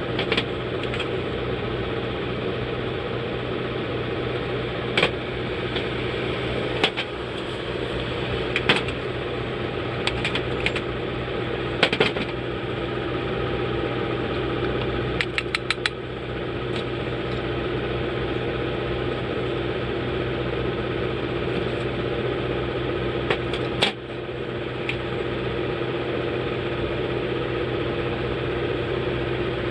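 A steady machine hum runs throughout, with scattered sharp clicks or taps, including a quick run of about five clicks roughly halfway through.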